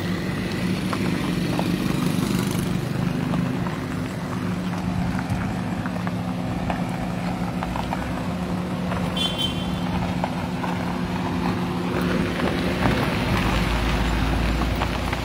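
Cars driving on a dirt road, heard from inside a moving car in a convoy: a steady engine hum with road and tyre noise. A deeper rumble comes in near the end.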